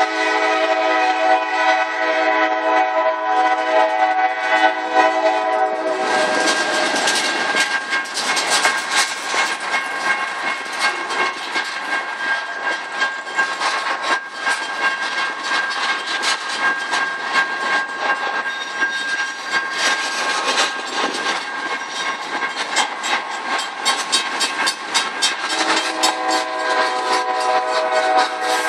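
Nathan K5LA five-chime locomotive horn blowing a wheezing chord for about six seconds. Then comes the clatter of the passing freight train, its wheels clicking over the rail joints. The horn chord sounds again near the end.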